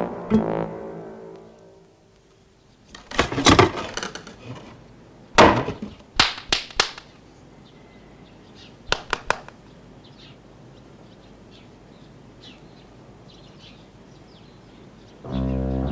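Cartoon sound effects: a few groups of sharp knocks and clatters, then faint high chirps. The background music fades out early on and comes back in near the end.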